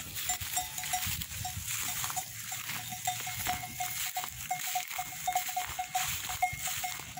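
Livestock bells on a flock of sheep clinking irregularly as the animals move, several short, ringing strikes a second, all at much the same pitch.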